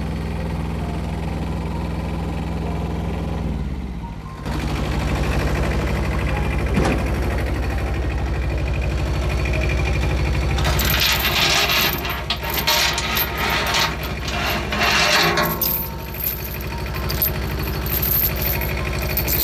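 An engine runs steadily, dips briefly about four seconds in, then carries on stronger. From about eleven seconds, metallic jingling and clanking rattles over it, typical of a chain dragging poles behind the machine.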